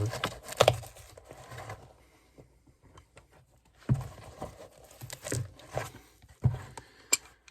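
A stuck shoe sole being worked loose and pulled off the shoe's upper by hand: irregular scraping, tearing and knocking noises, with a sharp click near the end, as the glued sole resists coming away.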